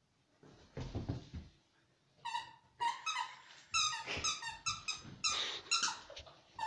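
A dog whining in a quick run of short, high-pitched squeaks, about two to three a second, starting about two seconds in. Before that there are a few soft thuds and rustles.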